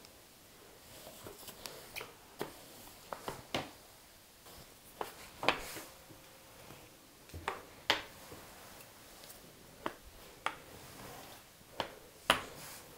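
Rolling pin rolling out yeast dough on a floured pastry mat, with scattered irregular light clicks and taps.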